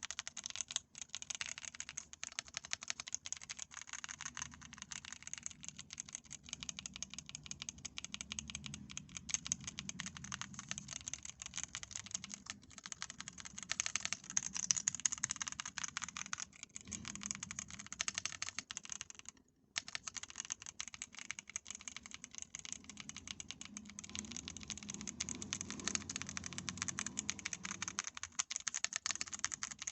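Buttons and rotary knob of a CIDOO V65 aluminium mechanical keyboard being pressed and turned: dense, rapid clicking and rattling, with one brief pause about two-thirds of the way through.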